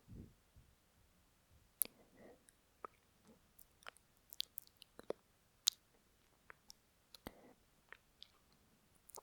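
Lip noise close to a binaural microphone: a dozen or so scattered, irregular wet mouth clicks and lip smacks, with a couple of faint short breaths between them.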